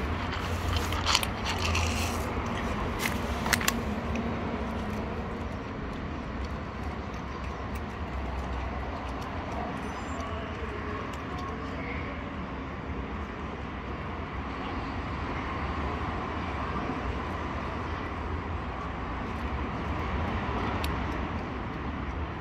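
Steady street ambience with a low rumble of distant traffic, broken by a few sharp clicks in the first few seconds.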